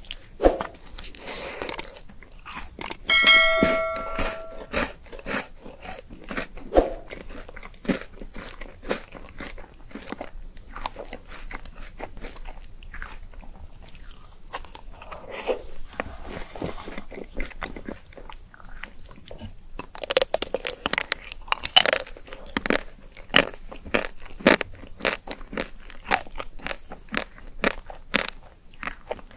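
Close-miked crunching bites and chewing of a mini wafer ice cream cone and of the chocolate shell of a pink ice cream bar. A short ringing tone sounds about three seconds in.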